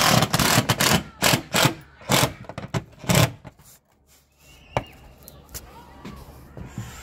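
Cordless impact driver hammering in short bursts as it drives a fixing. A long run comes first, then three shorter bursts over the next few seconds. After that come lighter handling knocks and one sharp click a little past the middle.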